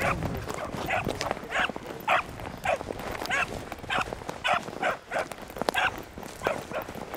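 Young beagle pup baying on a rabbit's scent line: short, chopping barks, just under two a second. A hound giving tongue like this is on the track.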